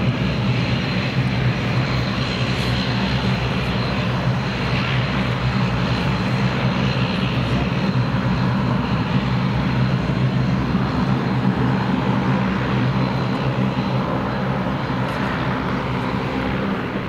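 Bombardier Dash 8 Q400 turboprop taxiing close by: its Pratt & Whitney PW150A engines and six-bladed propellers give a steady, loud, low propeller drone with a thin, high, steady whine over it.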